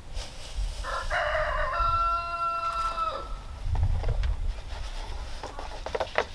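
A rooster crowing once, the call ending in a long held note. A few light clicks and rattles follow near the end as feed is scooped from a metal can.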